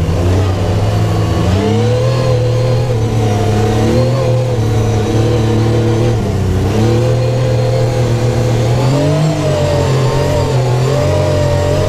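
Supercharged 2016 Yamaha YXZ1000R side-by-side's inline three-cylinder engine pulling under throttle, its revs climbing and dropping back several times.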